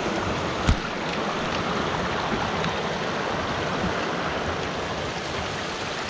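Shallow mountain stream rushing steadily over rocks, with a single knock just under a second in.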